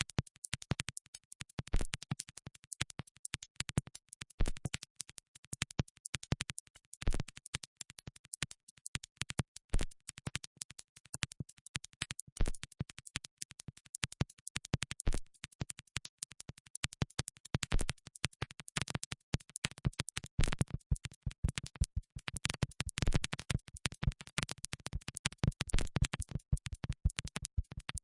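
Dense run of sharp electronic clicks and crackles, like a glitchy scratching texture, with a louder accented click about every two and a half seconds; it grows heavier in the low end in its second half.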